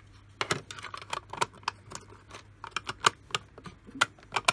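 Hard plastic clicking and tapping, a dozen or so short irregular clicks, as an orange plastic sorting plate is handled and fitted onto a purple plastic box like a lid.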